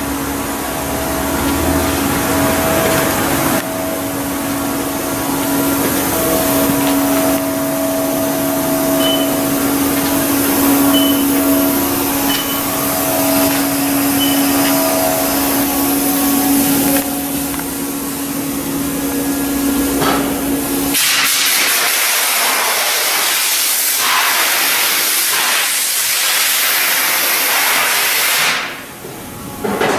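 Steady machine hum with a hiss, and four short high beeps between about 9 and 15 seconds in. About 21 seconds in, the hum drops away and a louder, rougher hiss takes over until shortly before the end.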